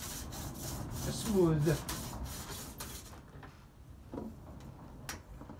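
Hand file worked in long strokes along the rough dovetail of a sled's quick-change runner rail, smoothing out burrs. The filing stops about three seconds in, and a single click follows near the end.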